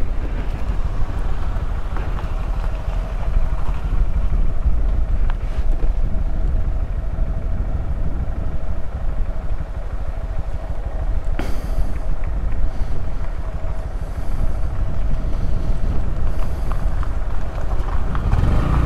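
A Honda Grom's small single-cylinder engine running steadily at riding speed, with wind rushing over the helmet-mounted microphone.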